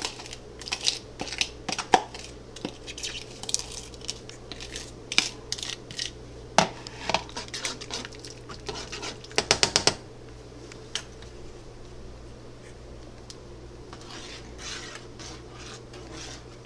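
Metal spoon clinking and scraping against a nonstick pan as red paste is stirred into boiling broth, with a quick run of clicks about nine seconds in. After about ten seconds the clinks mostly stop and a soft hiss is left.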